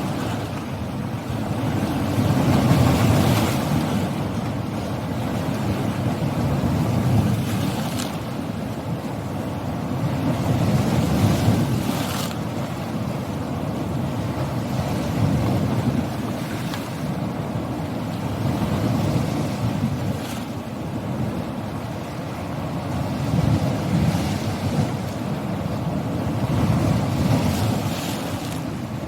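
Sea waves breaking on a coast: a continuous surf rush that swells and falls back about every four seconds, with a few sharper crashes.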